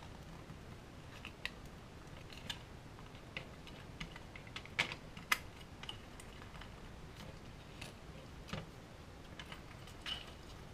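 Irregular small clicks and taps of a scalpel blade being run along the glued joints of a plastic model wagon body, breaking the glue, while the plastic parts are handled. The two sharpest clicks come about halfway through.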